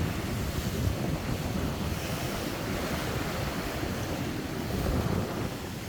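Sea waves surging on the shore, with wind buffeting the microphone in a rough, uneven low rumble.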